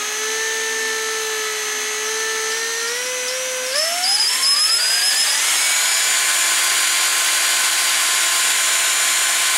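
Electric drill running with a steady whine, then speeding up about four seconds in, its pitch climbing over about two seconds and holding at the higher speed.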